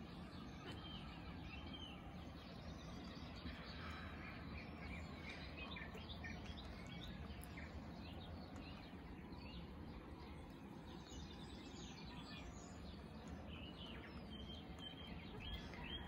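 Faint outdoor ambience: many short bird chirps scattered throughout, over a steady low background rumble.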